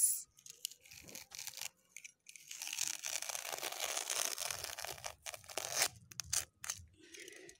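Utility knife slicing through artificial turf backing. A few faint scrapes come first, then one long continuous rasping cut from about two seconds in until nearly six seconds, followed by several short separate cuts.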